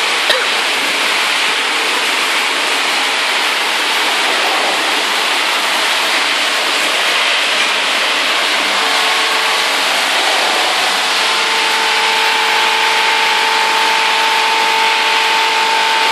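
Fried 3D pellet snacks tumbling inside a rotating stainless-steel drum seasoning machine, a steady dry rattling rush. A faint steady hum joins about nine seconds in, and a second, higher one about two seconds later.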